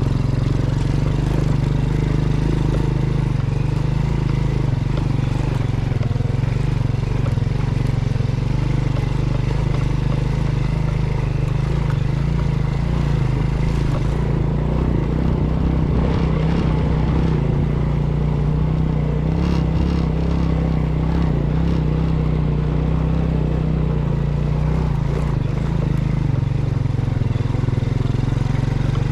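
Motorcycle engine running steadily, heard close up from the bike carrying the camera.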